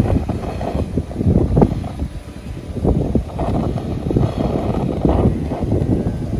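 Wind buffeting the microphone: an uneven low rumble with irregular gusting crackles and no steady tone.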